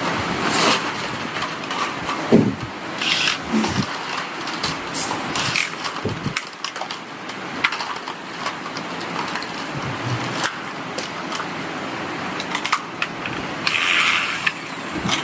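Factory workshop noise: a steady background of machinery with irregular clicks and knocks.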